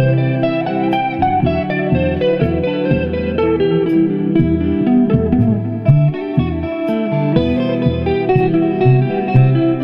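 Electric twelve-string guitar, the upper neck of a double-neck, playing a lead solo in E Aeolian (E natural minor) over a looped chord-progression backing from a Digitech Trio+ pedal, with a moving bass line underneath.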